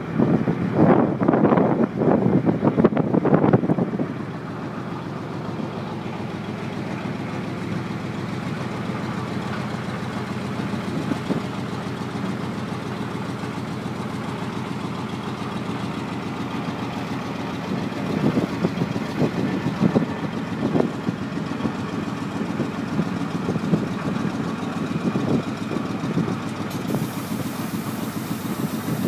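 An engine running steadily at idle. A louder, uneven rush covers the first four seconds.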